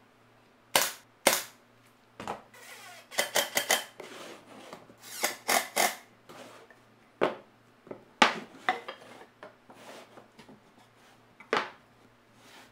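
Irregular sharp clicks and knocks of hard objects, some single and some in quick runs of three or four, a few with a faint ringing.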